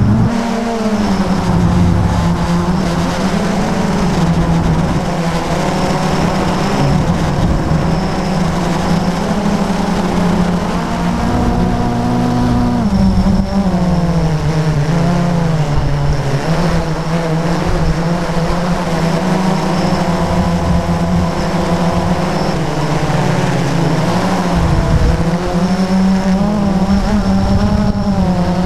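Electric motors and propellers of a small multirotor drone humming steadily as it flies, rising and falling in pitch as the throttle changes, heard close up from the camera mounted on the craft.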